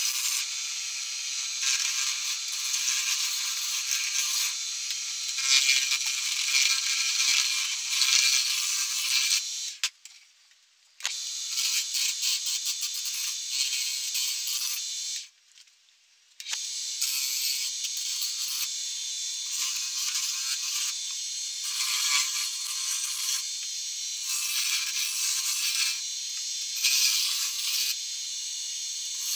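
Harbor Freight wood lathe spinning a cherry branch while a turning tool cuts it, a steady hiss of wood being shaved over the faint whine of the lathe's motor. About a third of the way in, and again about halfway, the sound cuts out for about a second.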